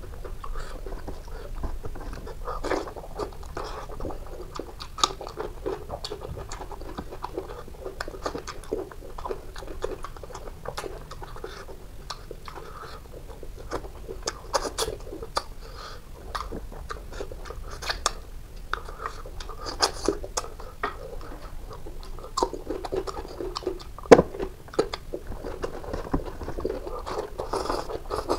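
Close-miked chewing and smacking as a man eats boiled rohu fish and rice by hand, with irregular wet clicks and lip smacks. A single sharper click stands out about 24 seconds in.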